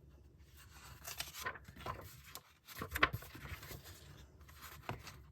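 Paper diary pages being handled and turned: soft rustling with a few light clicks.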